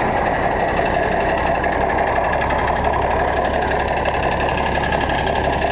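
Kenworth tow truck's diesel engine idling, a steady, rapid clatter with a constant low hum underneath.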